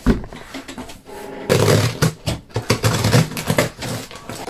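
A thump as a cardboard box is set down, then loud scraping, crackling and tearing of cardboard and plastic packing tape as the box is handled and its tape is slit open with scissors.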